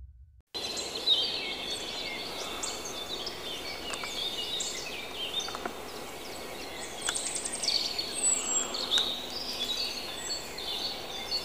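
Woodland ambience: several birds chirping and singing over a steady background noise, with a few short clicks.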